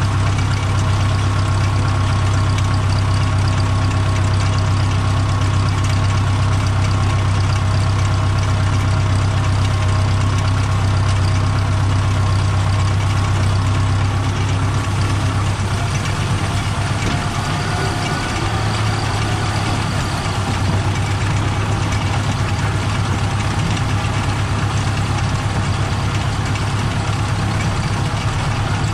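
Old tractor's diesel engine running steadily under load while driving a rotary hay tedder, heard from the driver's seat. The engine note shifts slightly about halfway through.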